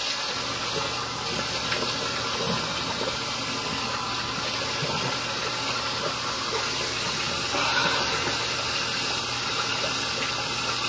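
Sink faucet running steadily while water is splashed onto the face to rinse it.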